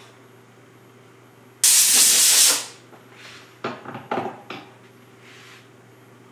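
Compressed air blowing in short blasts: one loud blast of about a second begins sharply a little over a second and a half in, then several short puffs follow, and a faint one comes near the end.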